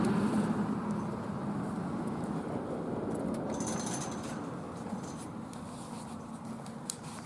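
A vehicle's steady noise slowly fading away, followed by a couple of faint clicks near the end.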